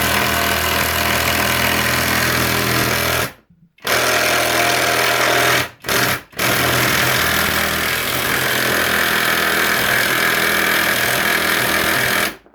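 Bauer 3/8-inch impact wrench hammering as it drives a 6-inch lag bolt into wood. It runs in three long bursts, with a short pause about three and a half seconds in and two brief ones around six seconds, then stops.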